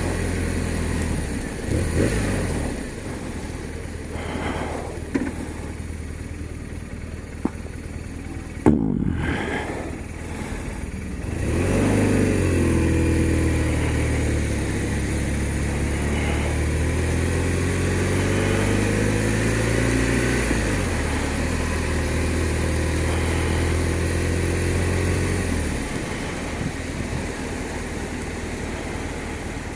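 BMW R1200RT's boxer-twin engine running at low revs, then pulling away about twelve seconds in, its pitch climbing steadily under throttle until a drop near twenty seconds. It holds a steady note for a few seconds more, then eases off and goes quieter.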